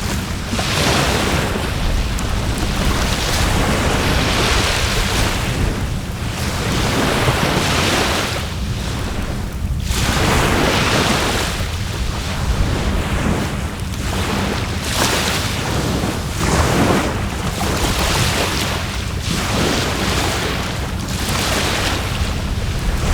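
Sea waves washing onto the shore, the surf swelling and fading every couple of seconds, with wind rumbling on the microphone.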